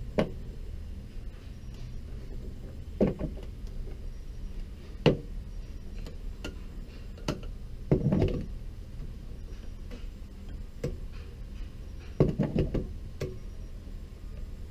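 Irregular clicks and knocks, about nine of them with a small cluster near the end, from hands working the ratchet handle and suction-cup mount of a wire-cutting glass-removal tool set on a car's quarter glass. A low steady hum runs underneath.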